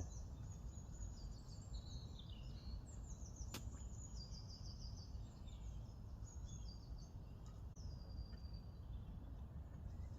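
A small bird singing: quick high chirps and short descending trills, repeated phrase after phrase, over a low steady outdoor rumble, with one sharp click about three and a half seconds in.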